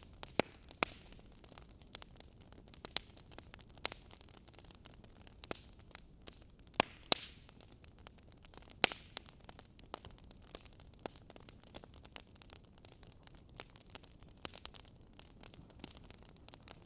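Wood fire crackling: irregular sharp pops and snaps over a faint steady hiss, with a few louder snaps near the start and around the middle.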